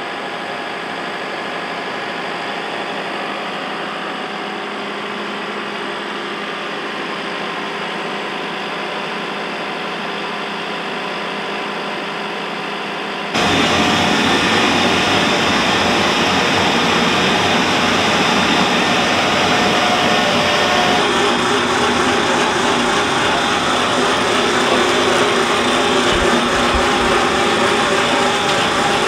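An engine running steadily. About halfway through, the sound jumps to a louder, rougher machine noise: a tractor-pulled Lewis Brothers windrower working through chicken-house litter, its rotor churning the litter into a windrow.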